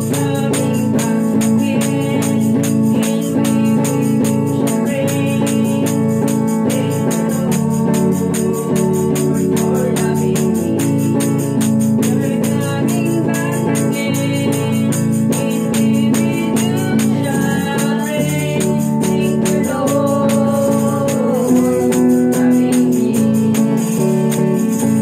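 Christian worship song: a woman singing, accompanied by electric guitar, sustained chords and steady percussion.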